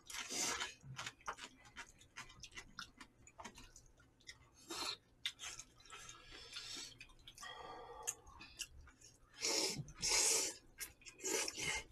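People eating jjamppong (spicy Korean-Chinese noodle soup): chewing and mouth smacks, with noodles being slurped in a few longer rushes, the loudest about ten seconds in.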